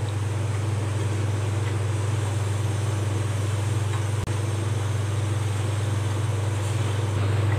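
A steady low hum, with a wooden spatula stirring hot rice-flour dough in a nonstick pan on the stove. There is a brief low thump about four seconds in.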